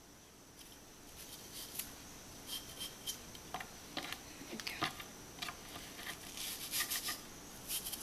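Kitchen knife slicing a peeled apple into thin slices: an irregular run of small crisp cuts and clicks of the blade, starting about a second in.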